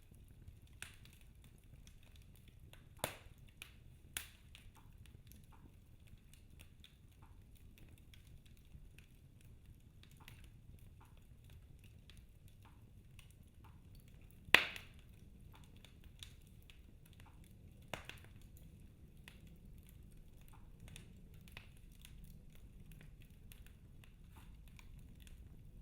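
Wood fire in a fireplace crackling steadily, with irregular sharp pops, the loudest about halfway through.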